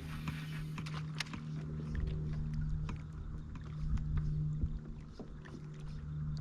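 A steady, even motor drone on the water, with scattered light clicks over it.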